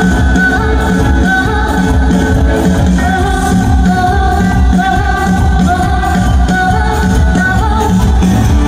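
Live band music: a woman singing a held, gliding melody into a microphone over drums, electric guitar and keyboards, all coming through the PA.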